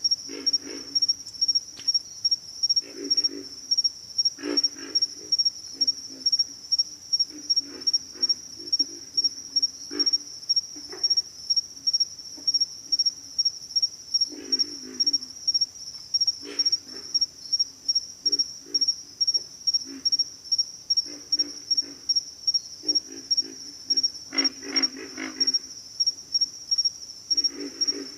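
Pig frogs grunting in short, low, rattling bursts every second or two, some calls overlapping, over insects chirping steadily at a high pitch.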